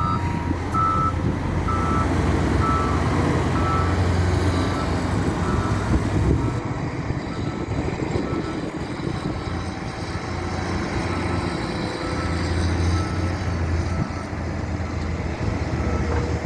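Heavy diesel earthmoving machinery running steadily, with a reversing alarm beeping about once a second as a machine backs up. The beeps are loudest in the first few seconds and grow fainter after that.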